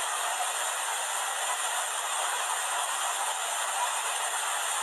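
Muddy floodwater rushing past in a fast torrent, a steady, even rush of water noise.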